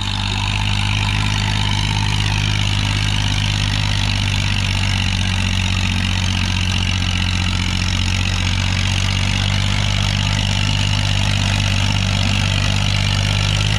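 Veer Partap FE tractor's diesel engine running steadily under load while pulling an 8x8 disc harrow through dry soil.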